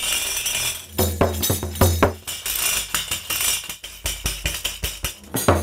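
Ukrainian бубон, a handmade frame drum with metal jingles, played in a lively rhythm: about a second of shaken jingle rattle, then a run of quick beats, each a low thud of the drumhead with the jingles rattling.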